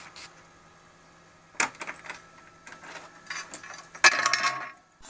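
Metallic clinks and knocks as an aluminium sheet is handled on a CNC router bed, with a louder scraping rattle about four seconds in, over a faint steady low hum.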